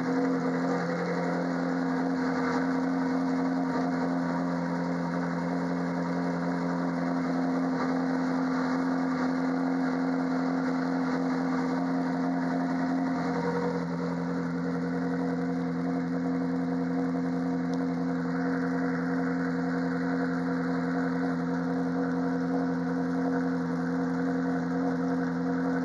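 Ferrari 458 Challenge's 4.5-litre V8 idling steadily, heard close to the tailpipes, with the note shifting slightly about halfway through.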